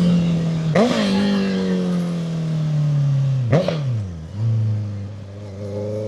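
Honda CB650F inline-four engine running through a custom-made muffler on a CBR650R exhaust, with two quick throttle blips, about a second in and again near four seconds. After the first blip the engine speed sags slowly; after the second it settles to a lower, steady speed.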